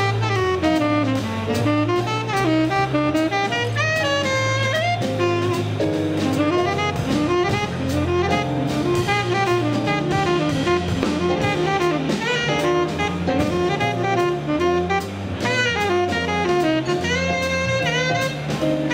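Jazz played by a small band: a saxophone carries the melody over bass and drum kit.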